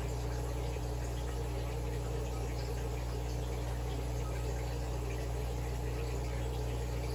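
Steady low hum and water hiss of an aquarium's filter pump running.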